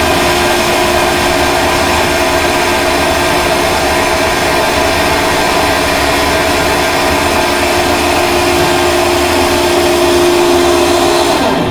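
Hydroelectric turbine-generator running at speed during startup: a loud, steady mechanical whine made of many steady tones over a deeper hum. Near the end the high whine drops away abruptly and the sound gets quieter.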